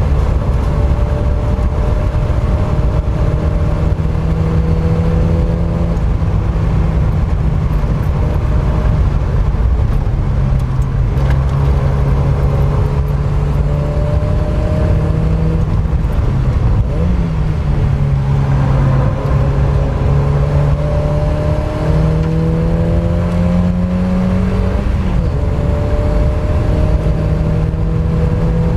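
Mk1 Mazda MX-5's four-cylinder engine working hard on track. Its pitch climbs steadily and steps or dips several times as the gears change, over a steady rush of road and wind noise.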